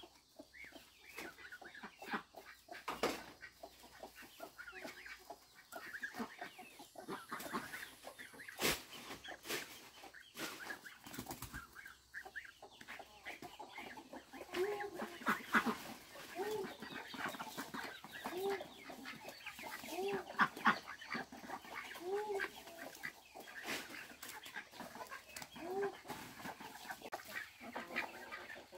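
Chickens clucking: a short, arched call repeated about every second or two through the second half, with scattered clicks and knocks throughout.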